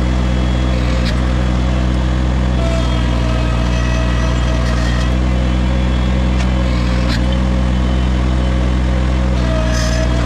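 Compact utility loader's engine running steadily at a constant speed, close up, with a few light knocks over it.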